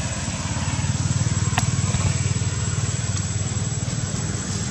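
An engine running steadily, with a thin high steady whine above it and a single sharp click about one and a half seconds in.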